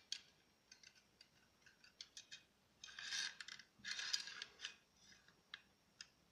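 Small metal clicks and scraping from a manual staple gun's magazine as its spring-loaded staple pusher rod is slid into the staple channel, with two longer scraping slides about three and four seconds in.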